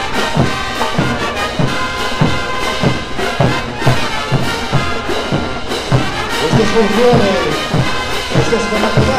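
Bolivian brass band playing a morenada: trumpets and trombones over a steady bass-drum and cymbal beat, about two and a half beats a second.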